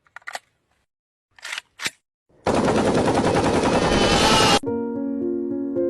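A few short clicks, then a loud, rapid rattling burst lasting about two seconds that cuts off suddenly, followed by keyboard music with held notes.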